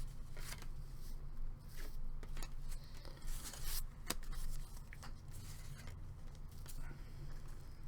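Trading cards being handled and slid against one another: a series of short papery swishes and flicks, over a low steady hum.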